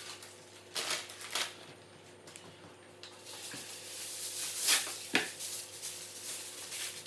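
Baking paper rustling and crinkling as it is handled and pressed down over a lasagna dish, in scattered rustles that swell into a louder crackle about four to five seconds in.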